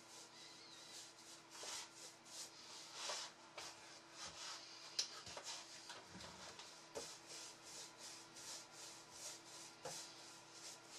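Faint brushing: a paintbrush swept back and forth over a wooden chair seat, spreading a wet finish, in a string of short swishing strokes, two or three a second. A single sharp click about five seconds in.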